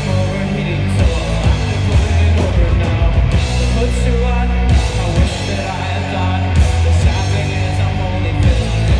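Live rock band playing loud and distorted, with a heavy bass line and a steady drum beat.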